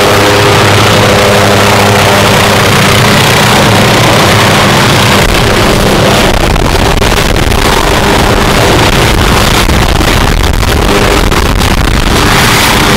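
Hughes 500-type light helicopter hovering low and setting down close by: steady turbine whine over rotor noise. From about five seconds in, heavy low rumble from rotor downwash buffets the microphone.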